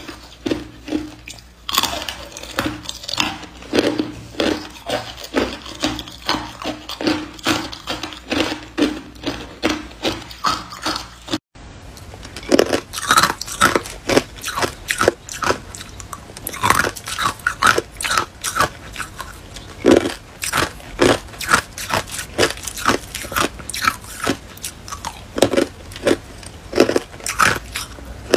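Ice being bitten and chewed close to the microphone: a steady run of crisp crunches, about two a second. After a brief dropout about a third of the way in, clear ice cubes crunch louder and more densely.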